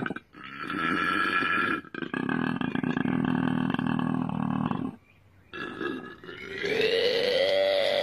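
Male koala bellowing, the deep grunting call males make to attract females. There are three long bouts, broken by short pauses about two and five seconds in.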